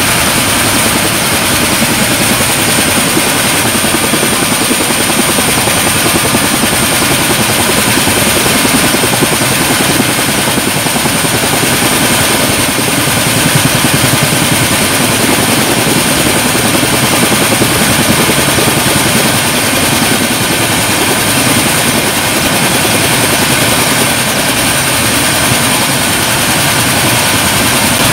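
Mi-17 helicopter's turbine engine running steadily on the ground: loud, even engine noise with a constant high whine.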